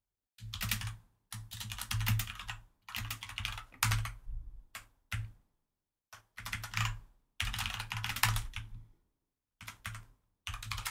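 Typing on a computer keyboard: quick runs of keystrokes, each lasting a second or so, broken by short pauses.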